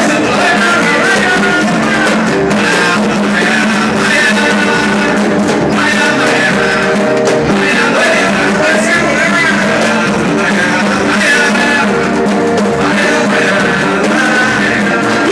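Music with singing and a repique de mão, the Brazilian hand-played repique drum of pagode, playing along throughout.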